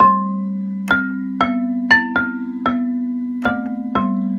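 Synthesizer notes played by the Bars & Pipes Arpaggi-8 echo tool from one held key on a MIDI keyboard. The notes fall in a repeating pattern of different pitches, about two a second, each dying away quickly, over a steady low sustained tone.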